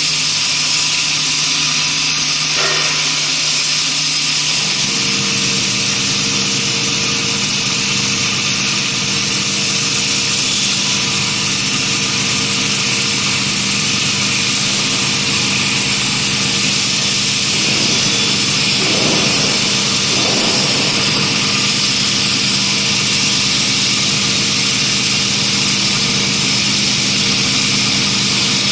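CNC wood copy lathe running: a steady motor hum under a loud, even high hiss. The hum steps up in pitch about five seconds in, and then holds steady.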